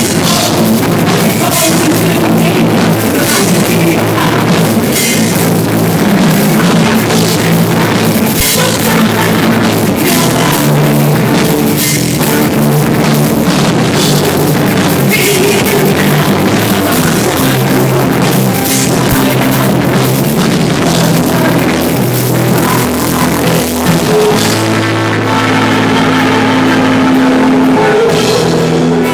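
Rock band playing live, amplified: drum kit with cymbals and electric guitar and bass, with little or no singing. A little before the end the drums drop back and held chords ring out.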